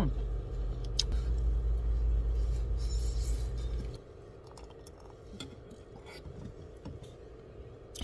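Light clinks of a spoon or chopsticks against a pot and dishes while eating, over a low steady hum that cuts off about halfway through.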